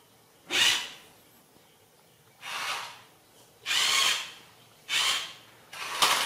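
Electric motor of a remote-control toy car whirring in five short spurts as the car drives and stops on a tiled floor.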